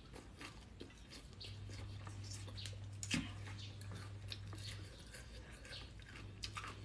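Close-up chewing of a mouthful of raw leafy greens with papaya salad: many small crisp crunching clicks, with one louder snap about three seconds in. A low steady hum sits underneath.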